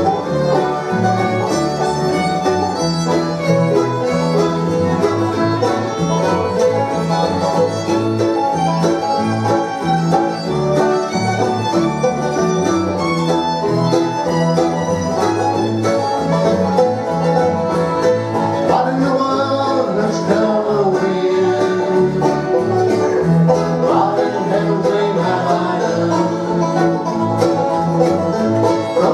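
Live bluegrass band playing an instrumental break of a song, with no singing.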